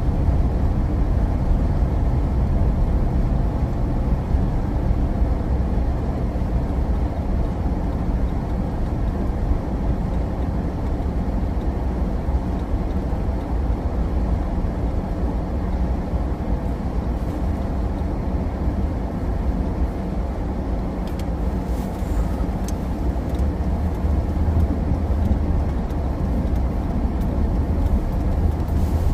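Steady low rumble of a vehicle being driven slowly on snow-packed, icy roads, heard from inside the cab: engine and tyre noise at a crawl.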